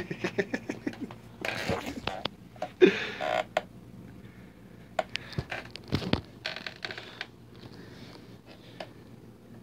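A cat scuffling and batting a dead mole around on carpet: light taps and rustling scrapes in short, irregular bursts.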